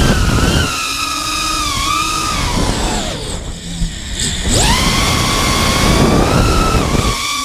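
FPV quadcopter's brushless motors whining from the onboard camera, their pitch sliding with the throttle: it falls steeply about three seconds in as the throttle is chopped for the flip, then climbs back and holds, over rushing prop wash.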